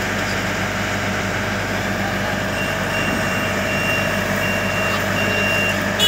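Heavy diesel vehicle engine idling steadily, with a run of short, high electronic warning beeps starting about halfway through.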